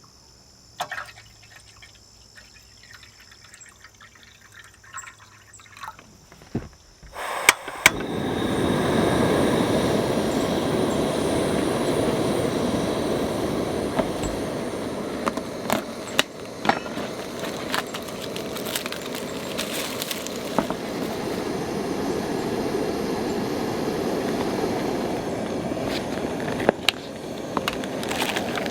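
Quiet with a steady high chirring of insects, then after a couple of sharp clicks about seven seconds in, heavy rain comes in suddenly as a dense, loud hiss with scattered sharp drop ticks, and keeps on.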